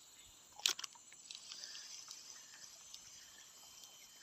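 Faint, steady high-pitched drone of insects, with one sharp click about two-thirds of a second in and a few fainter ticks after it.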